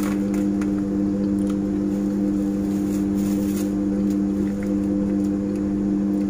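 A steady mechanical hum holding a few fixed low pitches, with a few faint rustles over it.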